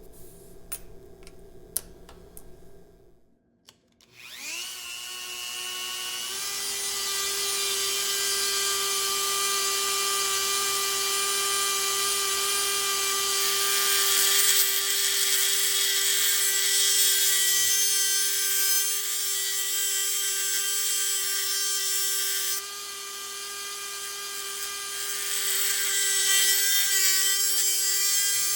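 Dremel 4000 rotary tool spinning up about four seconds in, after a few small handling clicks, then running with a steady motor whine while it grinds into a small steel package-opener blade, shaping its profile. The grinding eases near the end and then builds again.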